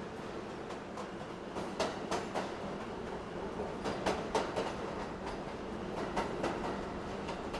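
Subway car in motion: the steady rumble of the running train, with groups of sharp clickety-clacks as the wheels pass over rail joints, three times.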